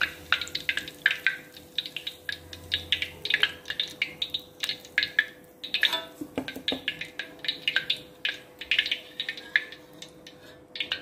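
Curry leaves frying in hot oil in an iron wok, crackling with a dense run of small, irregular pops, over a faint steady hum.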